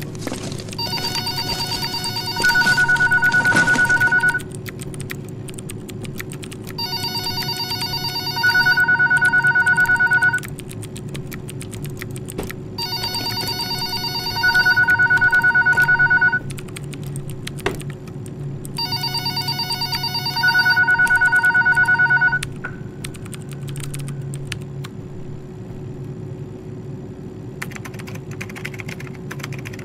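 Office telephone ringing four times, each ring lasting about three and a half seconds with a pause of about two and a half seconds between them, and each ring getting louder and gaining a higher tone halfway through. Under it runs a steady low hum of office room tone.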